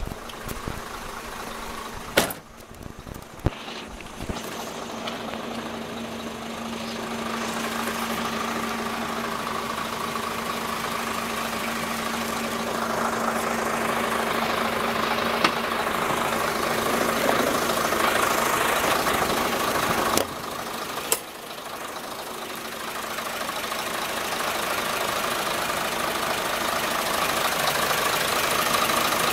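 Isuzu Forward dump truck's diesel engine idling steadily, growing louder as the microphone nears the engine. Two sharp knocks about two and three and a half seconds in, and two more about twenty seconds in.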